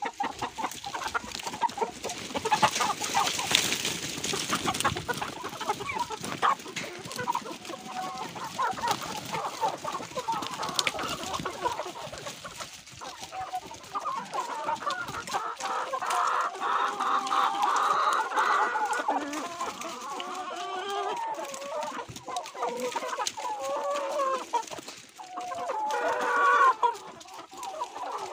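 A flock of young laying hens clucking continuously, with a louder call near the end. A brief rustling noise comes a few seconds in.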